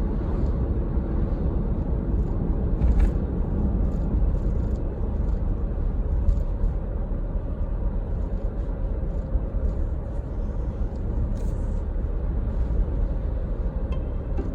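Steady low rumble with a faint steady hum and a few light clicks.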